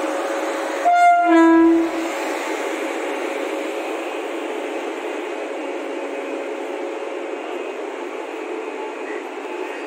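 A locomotive horn gives one short two-note blast about a second in, a higher note dropping to a lower one. Under it runs the steady running noise of a WAP 7 electric locomotive creeping up to a rake of coaches to couple.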